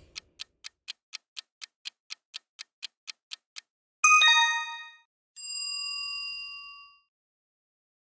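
Quiz countdown-timer sound effect: a clock ticking quickly, about five ticks a second, for about three and a half seconds. It is followed by a bright chime about four seconds in, then a single bell tone that rings out for over a second.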